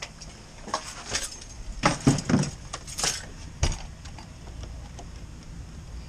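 Metal key lockbox on a door handle clicking and clinking as it is handled: a handful of irregular clicks and knocks over the first four seconds, the loudest about two seconds in.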